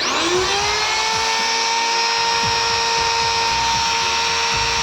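Bosch GWS 600 angle grinder's electric motor switched on for a test run with the gear head not fitted: it spins up in about half a second to a steady high whine and runs on at full speed, on freshly fitted original carbon brushes.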